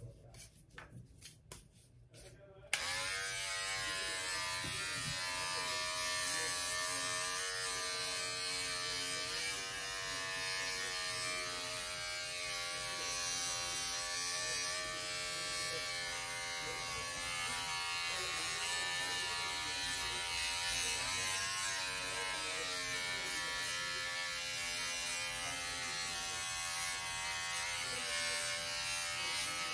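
Braun 6-in-1 electric shaver switches on with a sudden start about three seconds in, after a few faint clicks, then runs steadily with a buzzing hum whose pitch wavers now and then.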